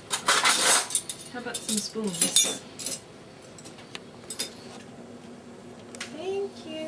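Dishes and cutlery clinking and rattling in the wire racks and cutlery basket of an open dishwasher as they are handled. The clatter is dense for the first three seconds, then drops to a few separate clinks.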